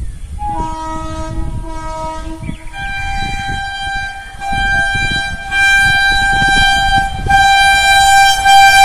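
Approaching Indian Railways electric locomotive sounding its horn in long blasts. One chord gives way after about two and a half seconds to a second, higher chord with a few short breaks, growing louder as the train nears the level crossing.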